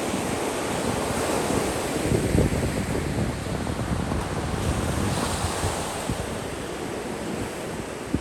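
Sea waves breaking and washing onto the beach in a steady rushing hiss, with wind buffeting the microphone in low, uneven rumbles.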